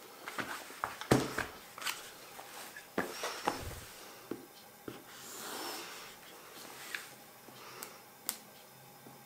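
Handling of a shrink-wrapped cardboard box: knocks and taps as it is set down and turned, the loudest about a second in, then sharp clicks and a soft rustle of a small cutter slitting the plastic wrap along the box edge.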